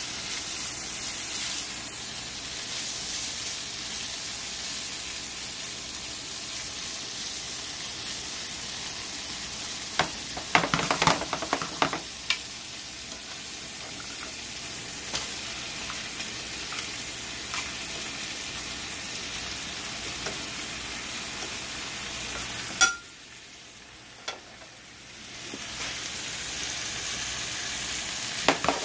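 Shrimp sizzling in a frying pan while being stirred with a spoon, a steady frying hiss. A cluster of utensil knocks sounds about a third of the way in. The sizzle drops away for a couple of seconds after a sharp click about two-thirds through, then comes back.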